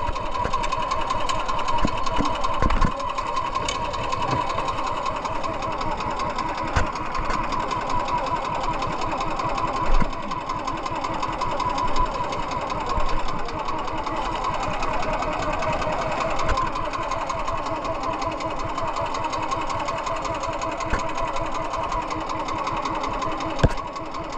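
A small fishing boat's engine running steadily, with a few sharp knocks over it, the loudest about ten seconds in.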